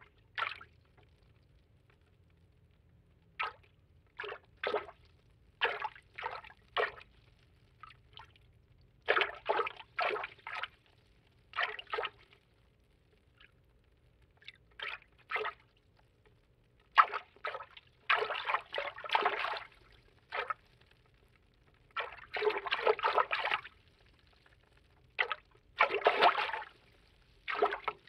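Water-movement foley: a string of short, irregular water sloshes and splashes with near-silent gaps between them. A few longer splashes of a second or more come in the second half.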